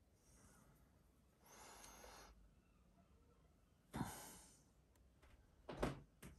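Near silence, broken by a person's soft breathing: a gentle exhale about a second and a half in and a sharper sigh about four seconds in. A few short knocks come near the end.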